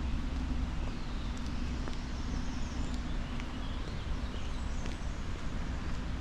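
Outdoor park ambience: footsteps on a path and scattered bird chirps over a steady low rumble of distant traffic.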